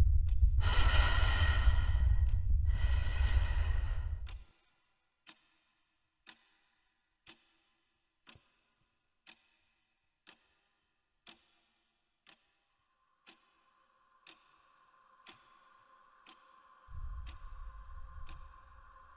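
Two long, heavy breaths over a low rumble, cutting off about four seconds in. Then a clock ticking about once a second. A steady hum comes in about two-thirds of the way through, and a deep rumble returns near the end.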